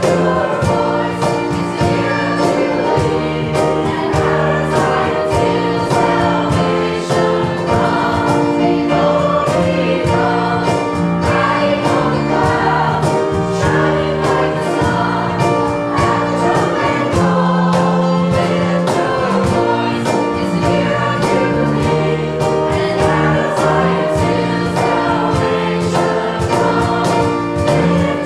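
Mixed church choir of men and women singing together over an accompaniment with a steady beat of about two a second.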